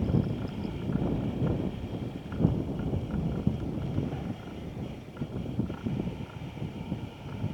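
Strong gusting wind buffeting the microphone, an uneven low rumble that swells and eases, strongest in the first half and settling somewhat after about four seconds.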